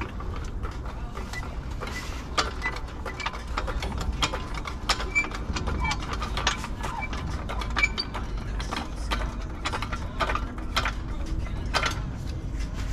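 Hydraulic trolley jack being pumped by its long handle to raise it: a run of irregular clicks and clanks from the pump strokes, over a low rumble.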